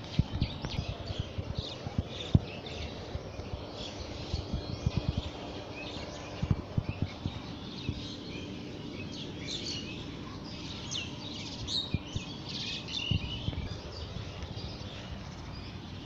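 Birds chirping throughout, busiest in the second half, over steady outdoor background noise. Close low knocks, bumps and rustling come and go as a plastic-bag-gloved hand gathers litter from grass, the loudest knock about two seconds in.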